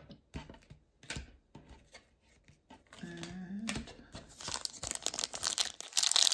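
Cards being handled with a few soft taps, then the foil wrapper of a hockey card pack crinkling and tearing open. The crinkling grows louder over the last couple of seconds.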